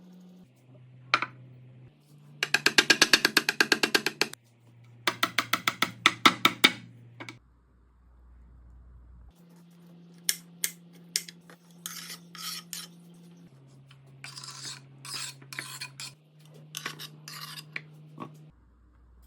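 Kitchen knife chopping rapidly on a cutting board in two quick runs of even strokes, followed by a string of separate sharp knocks and short rasping bursts.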